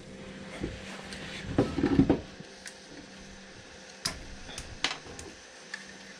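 Soft handling noises and a few light clicks and knocks as a freshly fused 3D printer filament splice is taken out of its plastic jig and tested. The busiest, loudest stretch is about two seconds in, with single clicks after it, over a faint steady hum.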